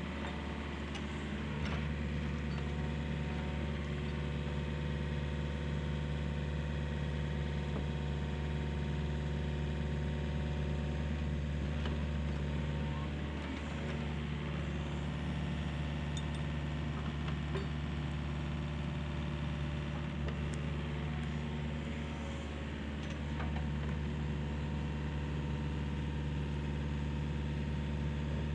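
An engine running steadily at a constant speed, easing off briefly twice, with a few faint clicks over it.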